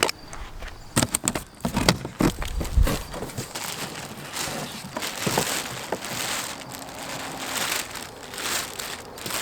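Car seat packaging being unpacked: a few sharp knocks and cracks of cardboard in the first three seconds, then plastic wrapping crinkling and rustling.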